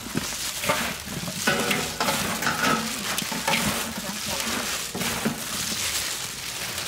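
Food sizzling as it cooks, with irregular stirring scrapes and knocks over the steady sizzle.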